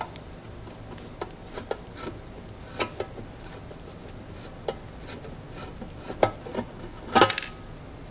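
A screwdriver backing machine screws out of a degausser's sheet-metal case: small scattered clicks and scrapes of metal on metal, with a sharper clack about seven seconds in.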